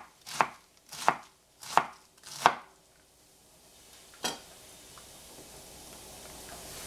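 Knife chopping cabbage on a cutting board: four even strokes about two-thirds of a second apart, then a pause and a single knock about four seconds in. A faint hiss slowly grows louder after that.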